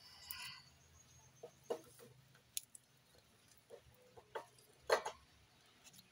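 Chickens clucking in short, scattered calls, the loudest about five seconds in.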